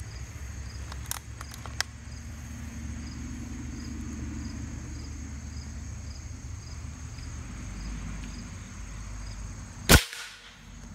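A single shot from a .357 Winchester Big Bore Model 70 PCP air rifle near the end: one sharp, loud crack. A couple of light clicks come about a second in.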